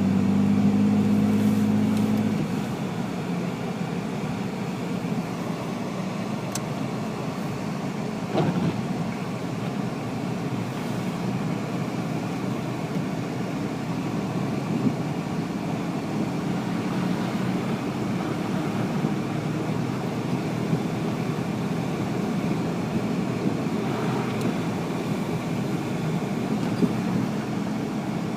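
Car interior noise while driving: steady engine and road hum heard from inside the cabin, with a louder humming tone for the first two seconds or so.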